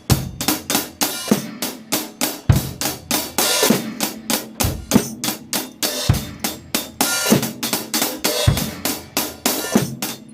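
Drum kit groove: steady eighth notes on the hi-hat, which opens now and then into a longer wash, over bass drum and snare.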